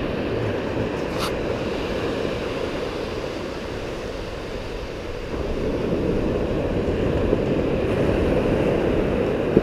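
Ocean surf washing in the shallows, with wind rumbling on the microphone; the wash eases off and then builds again about five seconds in.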